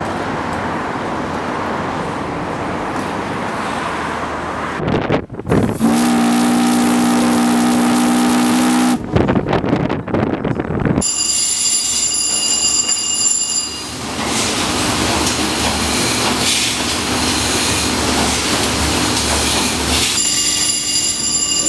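A paddle steamer's steam whistle gives one steady blast of about three seconds, several tones at once. Around it is steady rushing noise, and in the second half steady engine-room machinery noise with a high thin whine that comes and goes.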